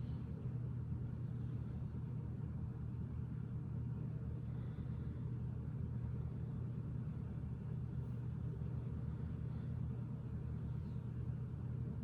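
Steady low background hum that stays level throughout, with no distinct events standing out.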